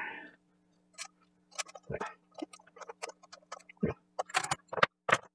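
Small metal parts clicking and tapping irregularly as a brass washer and hex nut are picked up and fitted by hand onto a clock movement's threaded shaft, about a dozen light clicks. A faint steady hum runs underneath.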